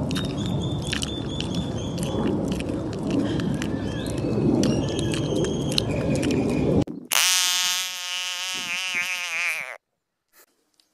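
A rough rustling noise with short high chirps over it for about seven seconds, then an African bullfrog giving one long call of about three seconds, its pitch wavering slightly, that cuts off abruptly.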